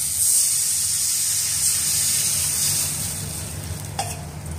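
Tamarind-and-sambar-powder gravy poured into hot oil and tempering in a steel kadai, hissing and sizzling on contact; the sizzle dies down after about three seconds. A short metal clink comes near the end, over a steady low hum.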